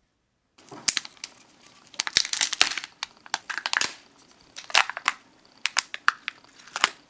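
Crinkly wrapper of a Kinder Joy surprise egg being torn open and crumpled by hand. It comes as a string of sharp, uneven crackling rustles, starting about half a second in.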